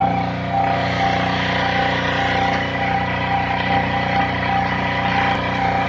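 Motorboat engine running steadily at constant speed, its pitch and loudness unchanging.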